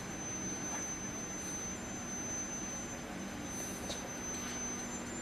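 Steady background hiss with a thin, steady high-pitched electronic whine and a fainter low hum.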